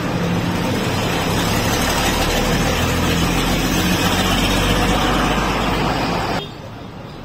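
Water poured from a stainless-steel kettle into the aluminium base of a moka pot: a steady, loud splashing stream that stops suddenly a little over six seconds in. A vehicle engine runs steadily underneath.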